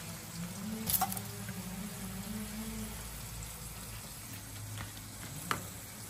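Sardines frying on banana leaf in a pan, a soft steady sizzle over a low hum, with a sharp click about a second in and another near the end.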